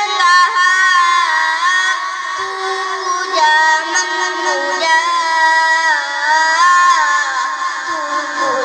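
A song with a high singing voice holding long, sliding, ornamented notes.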